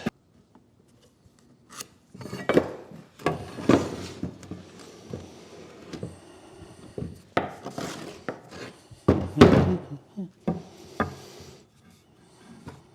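Wooden parts being handled on a workbench: irregular knocks and scrapes of wood, with the loudest knock about nine and a half seconds in.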